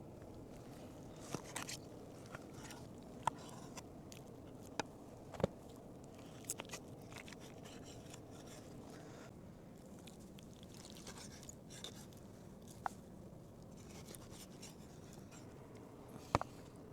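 Light, scattered clicks and taps of food and cooking utensils being handled, a dozen or so at uneven intervals over a faint steady background hiss.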